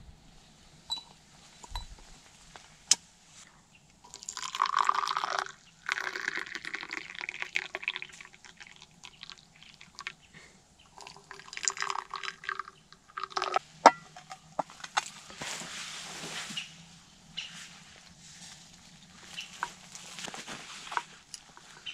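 Tea being poured from a soot-blackened kettle into small glasses, in several pours, with a few sharp glass clinks in between.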